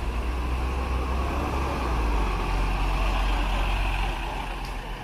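Three-axle Alexander Dennis Enviro double-decker bus driving past close by, its diesel engine running with a deep, steady hum. It is loudest about two to three seconds in and fades slightly near the end as the bus pulls away.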